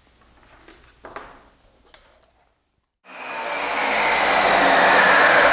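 A few faint handling clicks, then about three seconds in an electric workshop machine starts up and runs loud and steady, with a whine that slowly drops in pitch.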